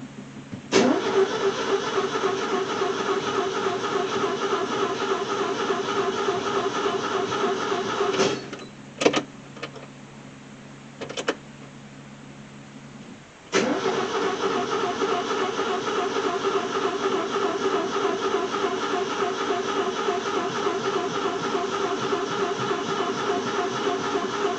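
Car engine being cranked by the starter motor without catching: a long crank, a pause with a few clicks, then a second long crank. The engine turns over but will not fire.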